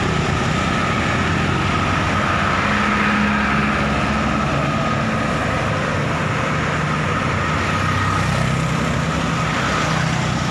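Steady road traffic: motorbike and truck engines running close by, under a continuous even noise.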